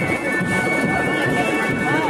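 Loud music with several high wind-instrument notes held steadily over a dense, busy low din.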